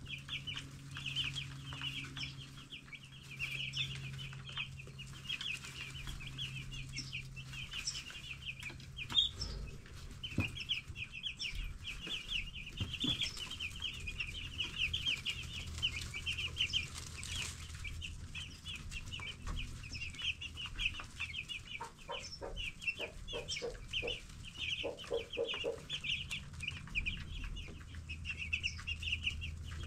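A brood of 10-day-old broiler chicks peeping constantly, many short high chirps overlapping without a break, over a low steady hum.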